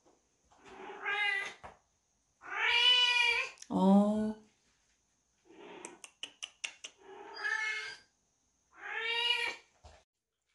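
A kitten meowing repeatedly, about five high calls with pauses between, the loudest a pair a little before the middle whose second call drops lower in pitch. A quick run of light clicks sounds between the third and fourth meows.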